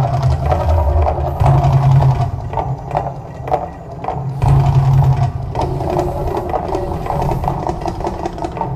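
Volcano show's music soundtrack with percussion and deep rumbling bass swells that come and go every second or two.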